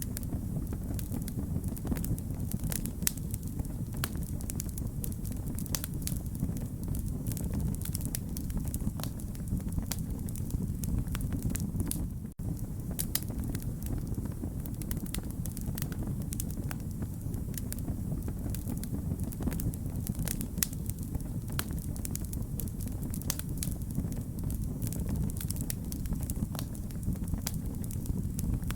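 Wood fire burning with a steady low rumble and frequent irregular sharp crackles and pops. There is a momentary dropout about twelve seconds in.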